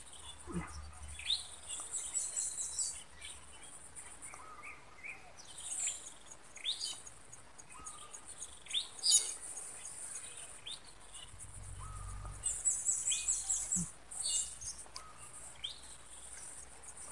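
Small birds chirping with short calls scattered throughout, over a high, fast trill that comes and goes.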